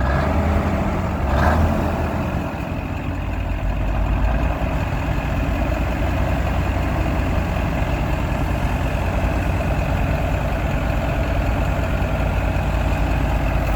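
1982 Marmon truck's Cummins diesel engine idling steadily, running again after sitting for many years. There is a brief louder swell about a second and a half in.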